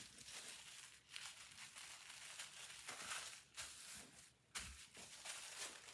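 Tissue-paper sewing pattern rustling and crinkling as hands fold it over and smooth it flat, in faint, uneven bursts.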